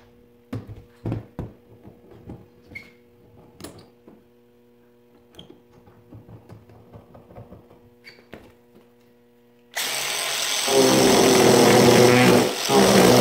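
Quiet handling knocks and clicks on the clamped wooden spoon blank, over a faint steady hum. About ten seconds in, an angle grinder with a ball-shaped carving burr starts abruptly and runs loud, carving the spoon's bowl.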